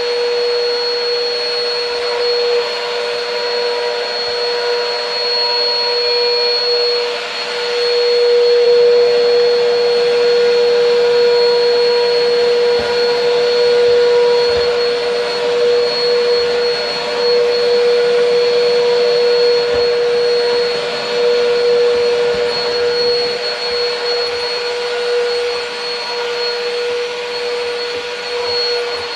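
Bissell PowerLifter Swivel Pet upright vacuum cleaner running continuously, a steady motor hum with a high whine, its loudness rising and falling a little as it is pushed.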